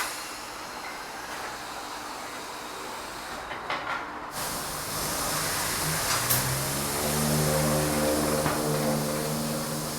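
Wheel balancing machine spinning a tyre and rim: a motor hum rises about six seconds in and then holds steady, over a continuous hiss.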